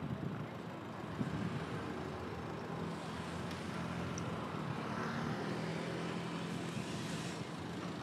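Street traffic: a vehicle engine hum and tyre noise, with a vehicle passing closer and louder from about five seconds in, fading near the end.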